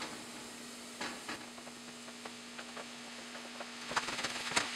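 Chopped purple cabbage sizzling in a pan of hot coconut oil with scallions, garlic and ginger, stirred and pushed around with a wooden spatula. The spatula makes scattered scrapes and taps against the pan, which bunch together near the end.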